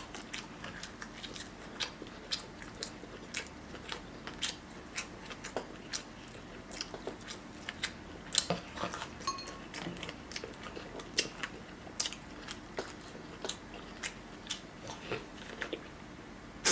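A person chewing and biting food up close to the microphone: a steady run of short, crisp mouth clicks and smacks, a few each second.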